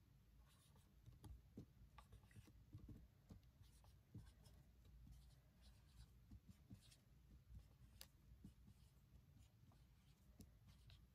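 Near silence: room tone, with faint scattered ticks and soft rustles of a paper card shifting in the hands.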